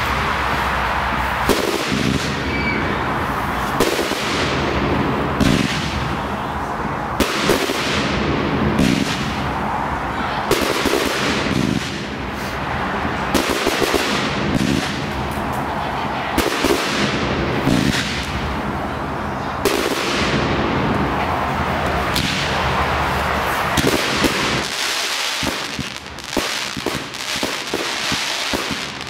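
Fireworks display: a steady run of shell bursts, bangs about a second or two apart, each trailing off in a hiss over continuous crackling. Near the end the bangs give way to dense crackling.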